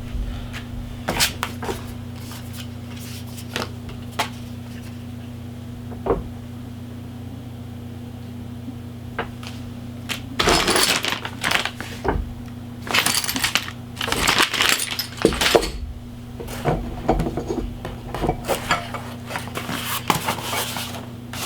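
Small metal suspension parts clicking and clinking while coilover parts and their packaging are handled, with rustling and clattering growing denser from about halfway. A steady low electrical hum runs underneath.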